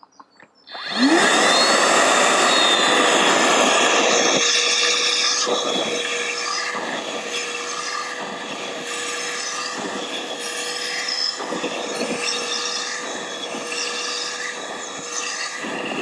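Worx 20V cordless wet and dry vacuum switching on about a second in, its motor rising in pitch and settling into a steady hum with suction hiss, running on its eco setting. From about four seconds in, the nozzle is drawn back and forth over carpet in repeated strokes that rasp and change the hiss with each pass.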